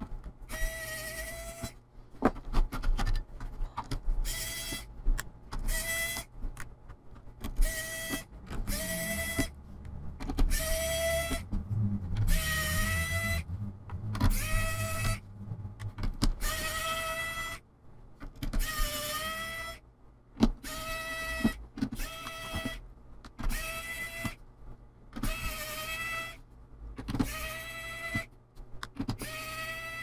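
Small electric screwdriver whirring in short bursts, about one a second with brief pauses, as it backs out the screws of a laptop's bottom case.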